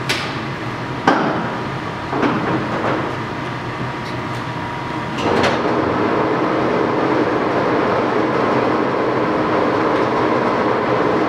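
Sidney lathe's herringbone-geared headstock running under power with a steady whir of gears, with a few sharp clunks of controls being worked near the start. About five seconds in the running grows louder and stays so.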